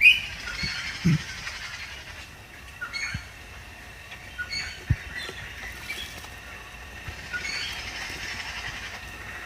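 Pet bird bathing: scattered short chirps over bursts of splashing and wing-fluttering in the water, the bursts near the start and again near the end, with a couple of soft knocks.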